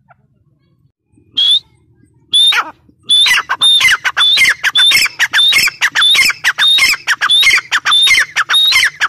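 Grey francolin calling loudly: two single harsh notes, then from about three seconds in a fast run of repeated harsh notes, each sliding down in pitch, about two to three a second.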